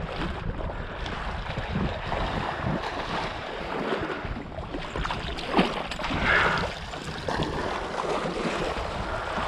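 Water splashing and sloshing in shallow floodwater, with wind rushing on the microphone.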